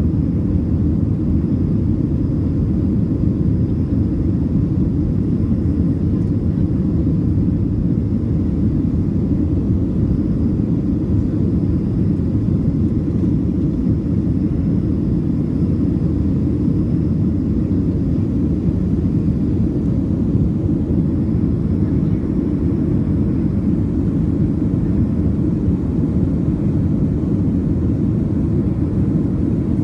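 Steady low drone inside a Boeing 737's passenger cabin: engine and airflow noise holding level without change, with a faint thin high whine above it.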